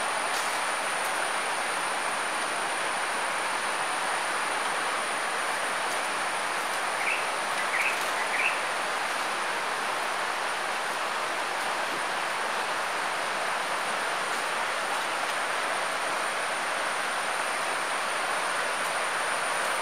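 Steady rushing of a forest stream, with an insect's continuous high-pitched whine over it. Three short chirps come about seven to eight seconds in.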